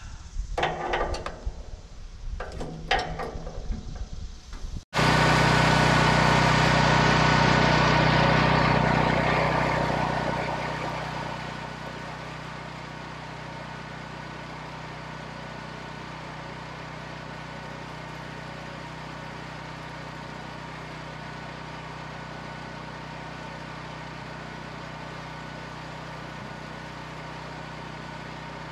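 A few light clicks of metal parts being handled. Then, after a sudden cut, a small engine runs steadily, loud at first, and settles to a lower steady level about seven seconds later.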